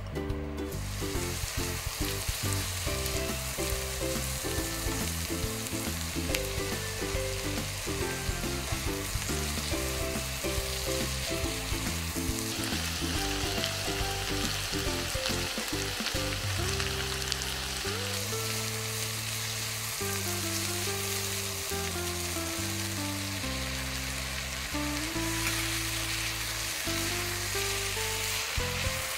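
Sliced red onions, then red bell pepper strips and chicken pieces, sizzling as they fry in a frying pan, starting about half a second in, with a spatula stirring them. Soft background music of held notes plays under the sizzle.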